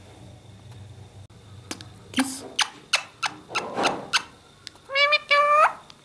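A string of sharp clicks and smacks, then an Indian ringneck parakeet gives two short, high-pitched talking calls, the second rising at its end.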